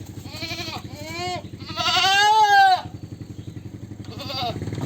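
Goats bleating: two short bleats, then a long, loud, wavering bleat about two seconds in, and a short bleat near the end. A steady low engine-like drone runs underneath.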